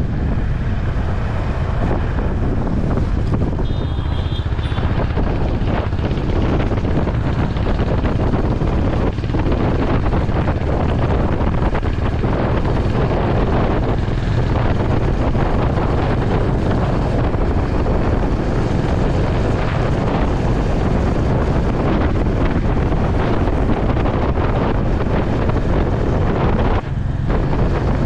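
Steady wind rush on the microphone of a motorcycle at highway speed, with the Honda H'ness CB350's engine and road noise underneath.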